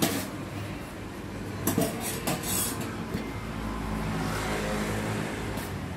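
Metal serving spoon clinking and scraping against stainless steel food trays, with a quick run of sharp clinks about two seconds in. A low traffic rumble runs underneath, strongest in the second half.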